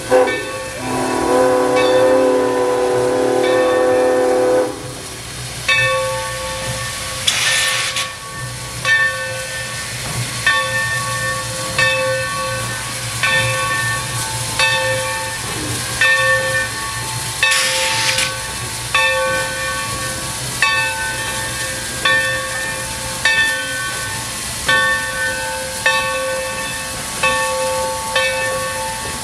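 A steam locomotive's whistle sounds a long chord of several tones that cuts off about five seconds in. After that a bell rings steadily, a little more than once a second, over a low rumble, with two short bursts of steam hiss.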